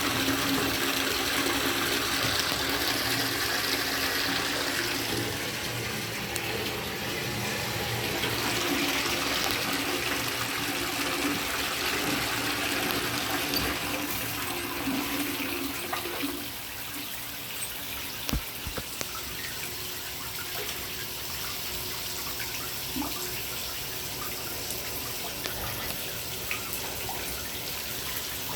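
A shower running, water spraying and splashing onto the tub and tile in a steady rush. A low steady hum goes with it for about the first half; after that the sound gets a little quieter and the hum fades.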